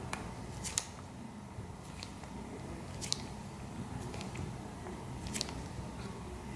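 Light handling clicks and rustles as gloved hands work the wire-end housing off a Singer Featherweight sewing-machine motor: about five short, sharp clicks scattered through, over a low steady background.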